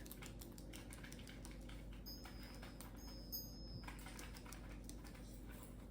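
Small dry clicks and cracks of a cockatiel's beak husking millet seeds, quiet and irregular, with two faint high steady tones about two and three seconds in.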